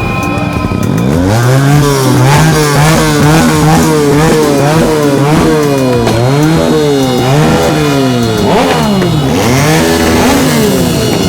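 A vehicle engine, most like a motorbike's, revved again and again in quick throttle blips. Its pitch rises and falls about twice a second, starting about a second in.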